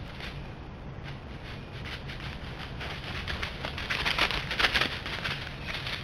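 White-tailed deer hooves crunching and rustling through dry leaf litter: a run of uneven crackling steps, loudest about four to five seconds in.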